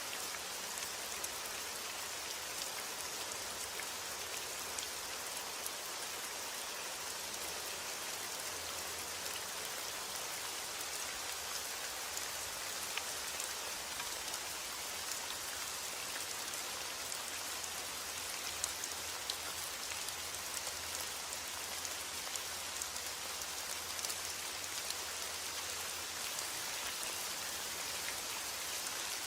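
Steady rain falling, an even dense hiss flecked with small drop ticks.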